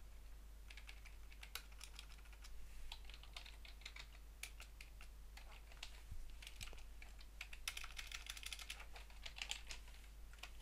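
Typing on a computer keyboard: quiet key clicks in irregular short runs with brief pauses, over a steady low hum.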